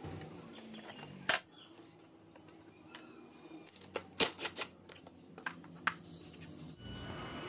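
Sharp metallic clicks and clinks from tools and small bolts and washers being handled on a model bulldozer's steel track frame. There is one click early, then a quick bunch of them a little past halfway, then a few scattered ones.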